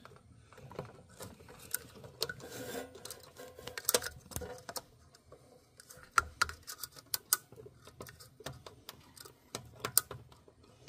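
Irregular light clicks and small metallic taps of MIG welding wire being pushed by hand from the spool into the welder's wire-feed mechanism, a few sharper clicks standing out.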